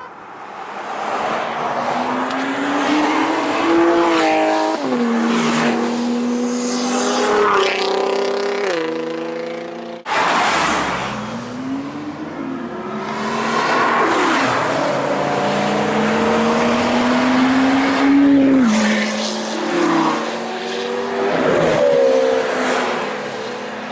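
Sports-car engines accelerating hard through the gears as the cars pass, each rev climbing in pitch and dropping at the upshift. The sound breaks off abruptly about ten seconds in and picks up with more cars accelerating the same way.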